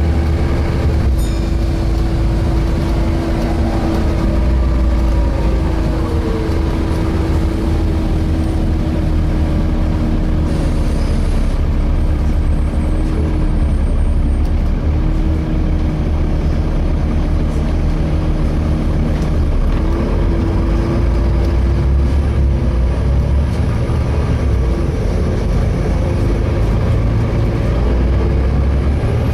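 Volvo B7TL double-decker bus heard from inside while driving: low engine and road rumble with a steady whine held throughout.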